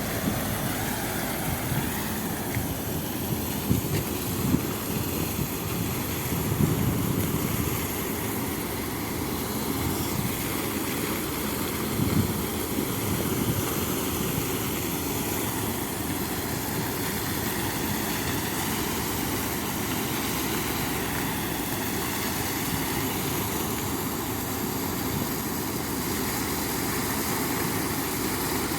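Engine-driven sand pump running steadily while pumping sand into a ship, with a few louder low knocks in the first half.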